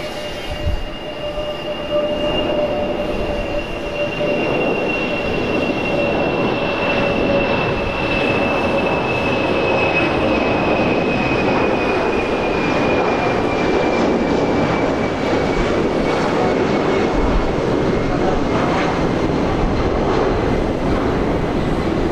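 Ilyushin Il-96's four PS-90A turbofans at takeoff thrust as the airliner climbs out overhead: a loud, steady jet roar that builds over the first couple of seconds and then holds, with a thin fan whine that slowly falls in pitch as the aircraft passes and draws away.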